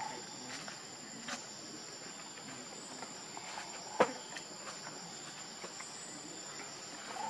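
Steady high-pitched insect chorus, like crickets shrilling, with a single sharp click about four seconds in.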